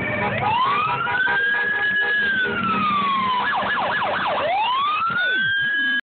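Emergency vehicle sirens sounding together: a slow wail rising and then falling, switching to a fast yelp about three and a half seconds in, then wailing up again, with other sirens gliding over it.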